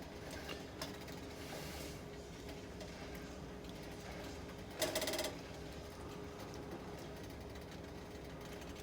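Spoon stirring and scraping in a pot of onion soup being thickened with flour, with light clicking over a steady low hum. There is one brief, louder scrape about five seconds in.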